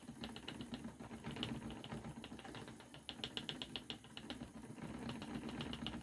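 Spinning wheel running as yarn is spun, with a fast, even ticking (about a dozen ticks a second) that comes and goes over a low steady hum.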